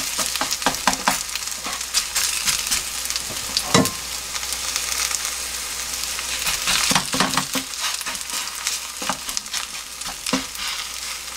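Garlic chive pancake batter frying in plenty of cooking oil in a nonstick pan: a steady sizzle with frequent small crackles and pops from the oil.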